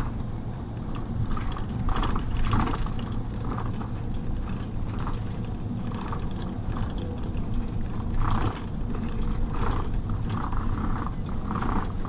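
Scania OmniLink city bus heard from inside while it drives: a steady low engine drone with irregular rattling and clicking from the body and fittings.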